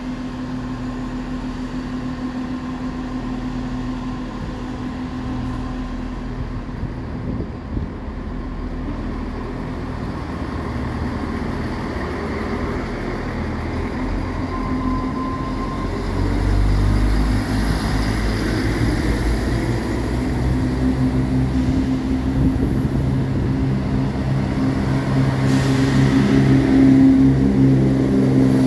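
Chiltern Railways Class 168 Turbostar diesel multiple unit running with a steady engine hum. It grows louder and deeper about halfway through as the train draws alongside the platform.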